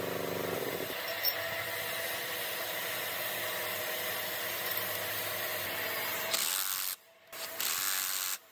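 Metal-on-metal rubbing and scraping as the parts of a hydraulic pump are turned and fitted by hand. Near the end a cordless power driver on a long socket extension runs twice briefly, driving in the bolts, and each run stops abruptly.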